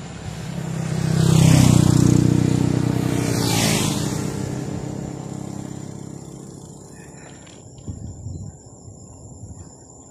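A motorcycle passing close by: its engine grows loudest about a second and a half in, swells again briefly a couple of seconds later, then fades away over the next few seconds.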